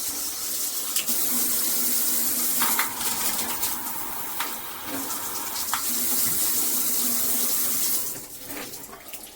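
Water spraying hard from a handheld shower head, a steady hiss with a few small clicks and knocks. The spray falls away sharply about eight seconds in.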